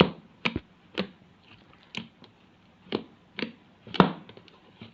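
Freshly made fluffy slime of white and clear glue and shaving cream being squeezed and stretched by hand, giving a string of short, sharp pops, about eight in five seconds.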